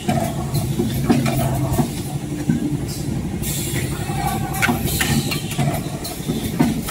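Rotary packing machine running: a steady motor hum with mechanical clicks and short hisses of compressed air as its pneumatic cylinders and suction cups cycle.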